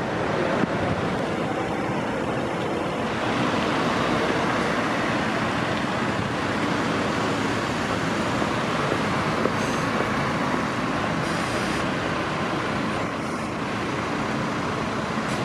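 Busy city street traffic: cars and an Ikarus 280 articulated diesel bus moving past, a steady mix of engine and tyre noise.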